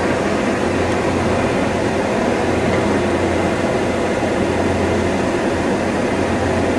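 Automatic drill-drive-rivet machine and the machinery around it running, a steady mechanical hiss over a constant low hum, with no separate drilling or riveting strokes standing out.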